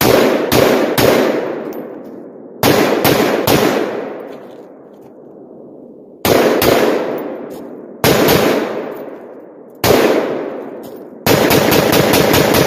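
Palmetto AR-10 Gen3 rifle firing .308 rounds, shots fired in quick groups of two to four, then a fast string of shots near the end. Each group echoes for a couple of seconds.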